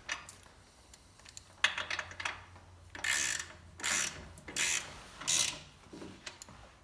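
Ratchet wrench clicking in several short runs, back-and-forth strokes tightening the bolts of a quarter midget's motor plate.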